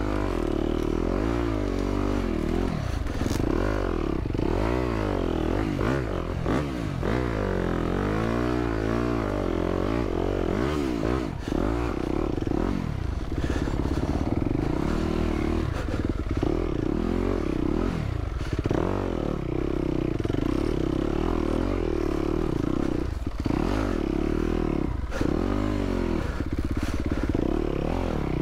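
Yamaha YZ250F dirt bike's four-stroke single-cylinder engine revving up and down continuously with quick throttle blips on slow, technical trail riding, heard from a mic inside the rider's helmet. A few knocks and clatters from the bike going over the trail come through.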